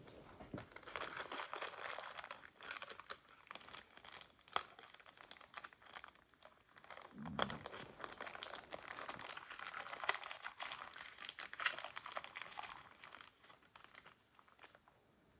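Rummaging through a packet of small Deutsch electrical connectors: a long run of crinkling and rustling with sharp little clicks, broken by a short pause and a dull bump about seven seconds in.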